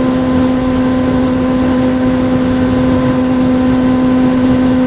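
Steady engine and road noise inside a moving vehicle's cabin at constant speed, with an unchanging droning hum.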